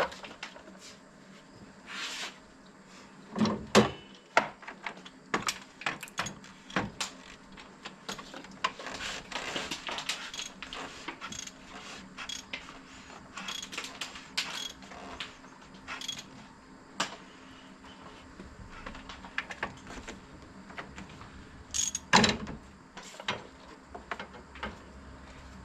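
Irregular small clicks, ticks and short scrapes of hand tools and inspection gear being handled around an engine.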